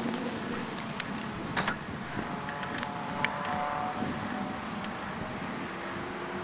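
Riding noise from a bicycle on a paved trail: steady rushing of wind and tyres with a few sharp clicks and rattles. Behind it is a hum of road traffic from the highway beside the trail, and a faint whine for a second or two near the middle.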